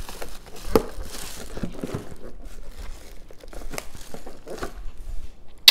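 Packaging crinkling and rustling as it is handled, with scattered small clicks and one sharp click near the end.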